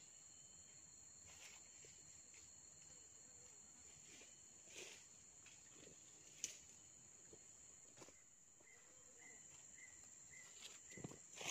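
Near silence, with a faint, steady, high-pitched drone of insects. A few soft clicks sound along the way, and in the last few seconds there is a run of short, evenly spaced chirps, about two or three a second.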